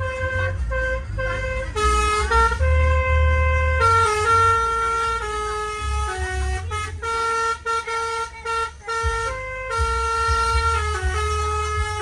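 Bus 'telolet basuri' multi-tone musical air horn playing a tune of held notes that step up and down in pitch, over a steady low rumble.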